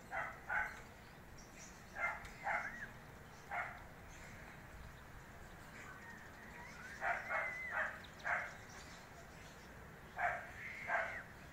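A dog barking in short runs of two to four barks, about a dozen barks in all, with a few pauses of a couple of seconds between runs.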